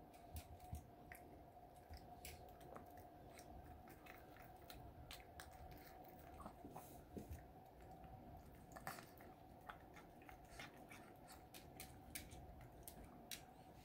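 A chihuahua chewing and licking a grain of cooked rice from a fingertip: faint, irregular small mouth clicks, with a faint steady hum behind.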